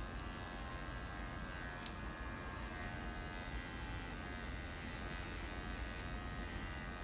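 Electric grooming clippers buzzing steadily as they shave a poodle's throat and the underside of its jaw.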